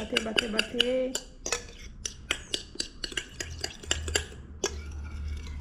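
A fork beating egg whites and yolk together in a glass bowl, with quick, rapid clinks of metal against the glass: the yolk being folded into the stiffly whipped whites to make gemada.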